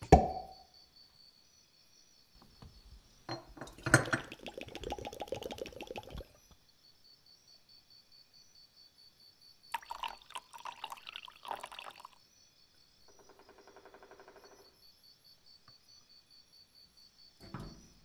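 A cork pulled from a glass bottle with a sharp pop, then liquid poured into a glass jar in two spells, about four and ten seconds in, followed by a fainter trickle. A short clunk near the end, and a faint steady high whine underneath.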